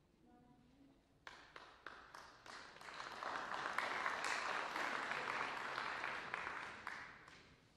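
Audience clapping in a snooker arena: claps start about a second in, swell into full applause, then fade away near the end.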